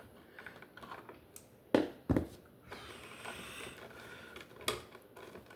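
A few sharp clicks and knocks from handling wires and tools at an electrical box, two close together about two seconds in and a lighter one near the end, over faint rustling.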